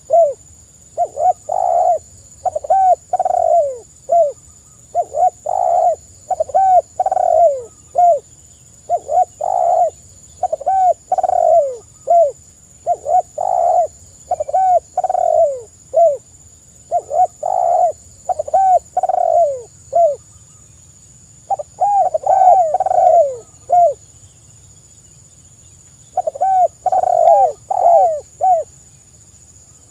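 Spotted dove cooing again and again in short phrases of three or four falling coos, one phrase after another, with a brief pause about twenty seconds in and a longer one a few seconds later.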